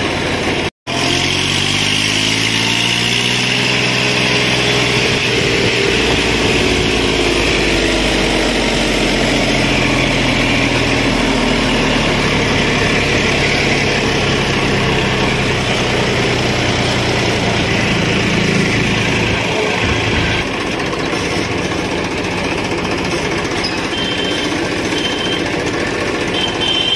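Tractor diesel engine running while driving on the road. Its pitch climbs for a few seconds as it picks up speed, then settles and eases down.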